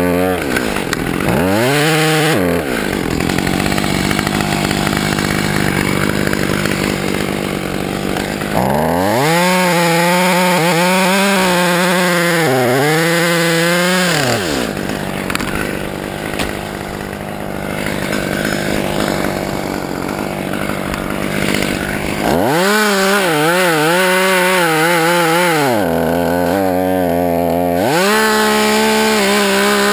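Husqvarna two-stroke chainsaw cutting through a tree trunk. The engine repeatedly climbs to a high, wavering rev, then drops back to steadier, lower running in between.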